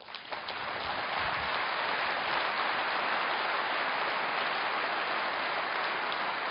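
Audience applause, building within the first second and then holding steady.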